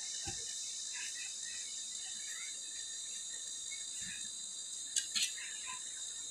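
Steady high-pitched chirring of insects, with scattered faint bird chirps. Two light knocks sound about five seconds in, from the concrete hollow blocks being handled.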